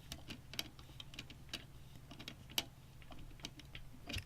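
Irregular light clicks and ticks of small PC parts being handled as a screw is worked into a plastic case fan frame, with one louder click near the end, over a steady low hum.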